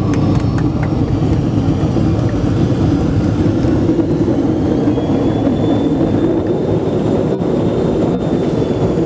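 Steady cabin noise of a McDonnell Douglas MD-82 airliner, its rear-mounted Pratt & Whitney JT8D turbofans running, heard from inside the passenger cabin, with a faint high engine whine coming in a few seconds in.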